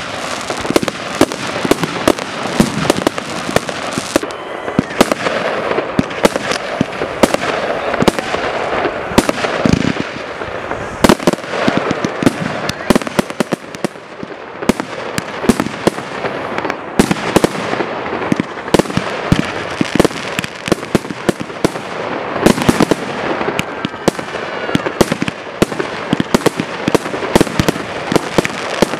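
Fireworks display: rapid, continuous bangs and crackling from bursting shells, many reports a second.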